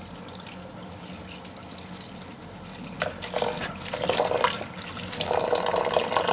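Tap water running into a plastic basin of chopped leafy vegetables while a hand swishes and splashes the leaves to rinse out sand. The splashing grows louder from about three seconds in.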